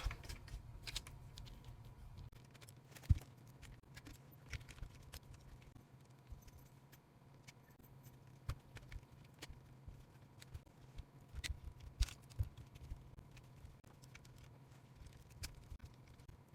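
Faint, scattered clicks and light clinks of small tools and metal parts as the link and shock screws are removed from a mini RC crawler's front axle.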